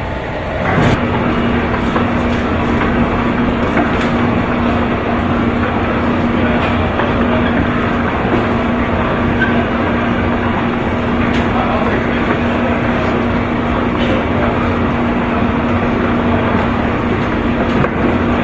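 Airport baggage conveyor belt running: a clack about a second in, then a steady motor hum under the rattling of the moving belt, with an occasional click.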